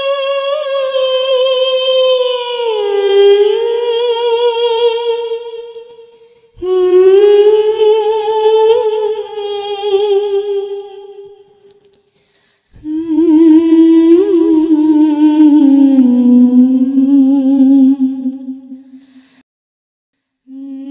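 A voice humming a slow, wordless melody in three long phrases, each held with vibrato and sliding down in pitch, with short breaks between them; the third phrase is lower than the first two.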